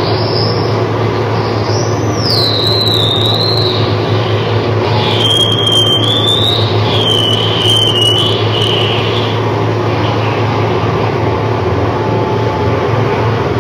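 Amplified electronic noise from an instrument and amplifier: a steady loud hum and hiss drone, with wavering high-pitched whistling tones that glide up and down from about 2 to 9 seconds in.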